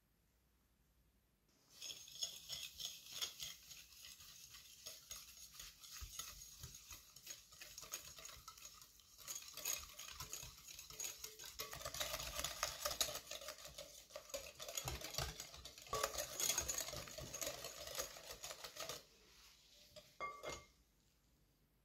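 Stainless wire whisk beating egg yolks and sugar in a glass mixing bowl: fast, continuous clinking and swishing strokes against the glass. It starts about two seconds in and stops a few seconds before the end, followed by two light taps.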